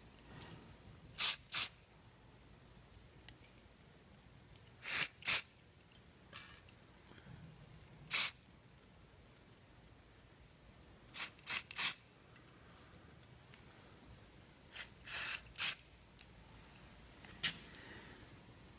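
Aerosol spray paint can hissing in about a dozen short, light bursts, singly and in quick pairs and threes, as paint is sprayed over a leaf stencil. Under it, crickets trill steadily.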